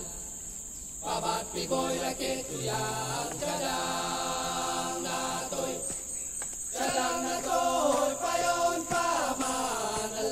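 Background music of slow, choir-like chanting in held chords, with a short break about six seconds in. Under it runs a steady high insect drone.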